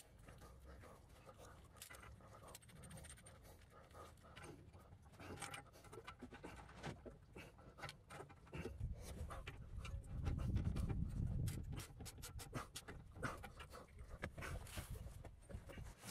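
Faint clicks and scraping of hand tools on a rusted exhaust flange nut as a nut splitter is fitted and worked, with a louder low rumble of handling noise about nine to twelve seconds in.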